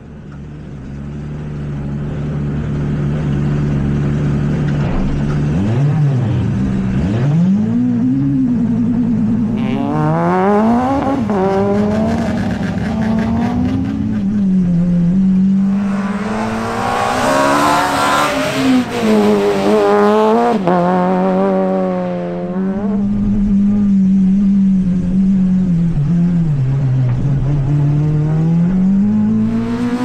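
Citroën C2 Super 1600 rally car's 1.6-litre naturally aspirated four-cylinder engine being driven hard. It fades in, then revs climb and drop again and again through the gears, loudest around the middle of the stretch.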